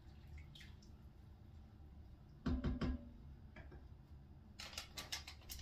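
Kitchen handling sounds: a clunk with a short ringing tone about two and a half seconds in, then a quick run of light clicks and rattles near the end, over a low steady hum.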